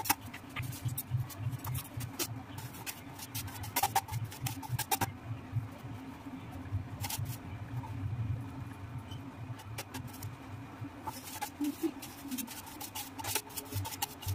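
Scattered light knocks and clicks of food preparation at a kitchen counter, coming at an uneven pace, over a low hum.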